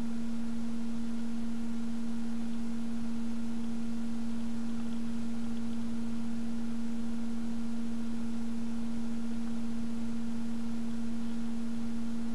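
A steady hum at one pitch with a fainter overtone, unchanging throughout; no handling sounds stand out.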